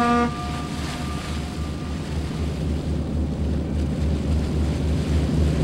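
A ship's whistle ends just after the start. It gives way to a ship's engine throbbing steadily under a wash of water and wind noise.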